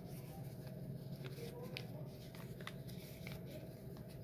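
Folded sheet of paper crinkling in the hands with a few faint, short crackles as its creases are pinched out and bent in, over a steady low room hum.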